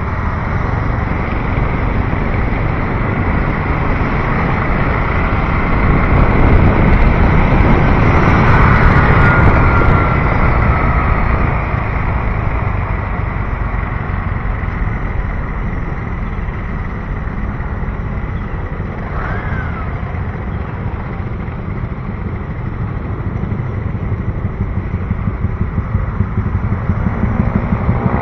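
City road traffic running steadily. It swells louder between about six and ten seconds in as vehicles pass close.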